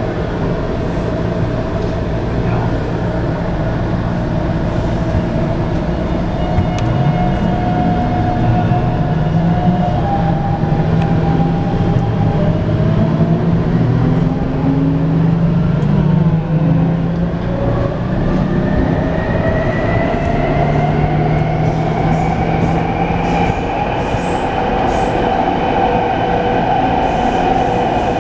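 Taipei Metro C321 refurbished train pulling away and accelerating, its traction inverter and motors whining in several tones that glide and climb in pitch, over a steady rumble of running gear. The whine is the abnormal inverter noise that the rider attributes to a fault in this train's inverter.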